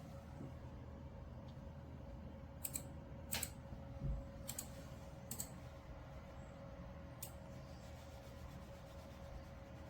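A handful of scattered, sharp key clicks from a computer keyboard, pressed now and then rather than typed in a run, over a faint steady hum.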